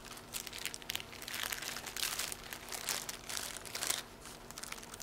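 Clear plastic sterile drape crinkling as gloved hands unfold it and spread it out, with irregular crackles that are loudest in the middle.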